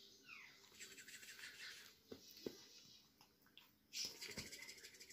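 Near silence: faint rustling and a few soft taps, with one faint falling chirp-like sound near the start.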